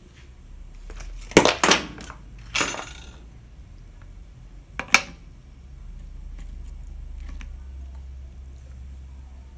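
Ice cubes knocking against a glass pot lid and against each other: a few sharp clinks and a short rattle in the first half. A low steady hum follows.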